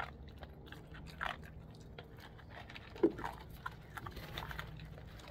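A puppy crunching and chewing dry kibble from a plate, many small crunches in quick succession, with one brief louder sound about three seconds in.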